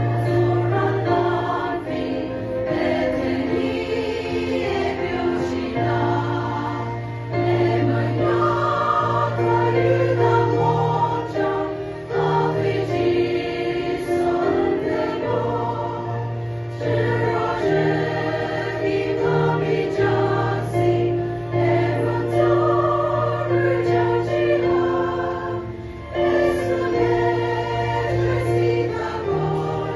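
Women's church choir singing a hymn together, with long held low notes underneath the voices.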